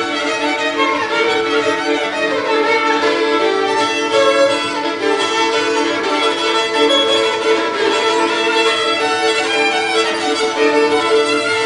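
Three violins playing a traditional Ukrainian folk tune together, with a steady sustained drone under the melody.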